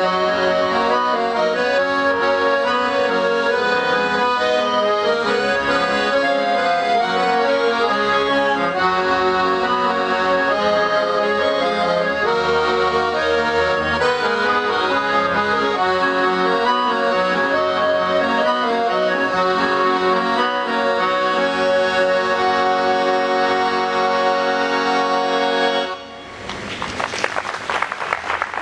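Three accordions playing a piece together in sustained chords and melody. Near the end the playing stops and the audience applauds.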